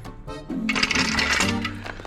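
Background music with a steady bass line. A loud burst of hiss from about half a second to a second and a half in is the loudest part.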